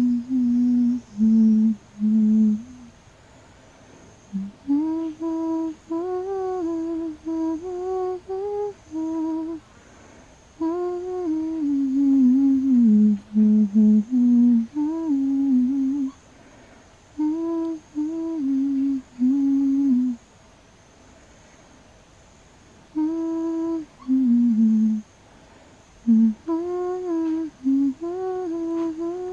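A person humming a slow tune to lull a baby to sleep, in short melodic phrases with a few pauses of a couple of seconds.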